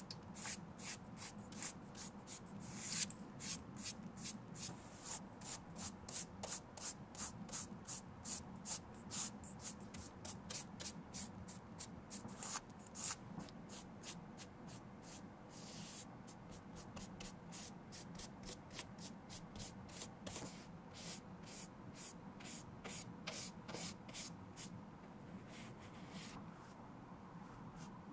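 Bristle paintbrush stroking black leather paint onto a sneaker's leather: short brushing swishes in quick succession, about three a second. The strokes thin out and quieten near the end.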